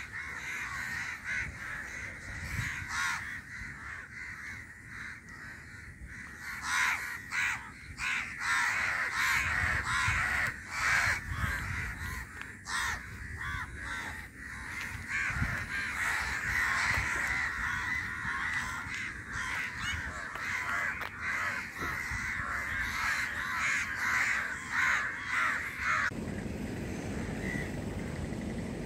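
A flock of crows cawing, many calls overlapping in a continuous chorus. Near the end the calling cuts off suddenly, leaving only a low steady rumble.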